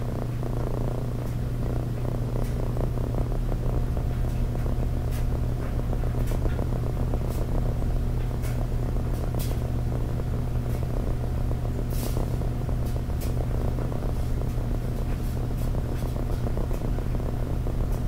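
Frigid EA 203 box fan running on low speed, heard through a microphone fixed right behind its motor: a steady electric motor hum over a low rumble, with scattered faint clicks.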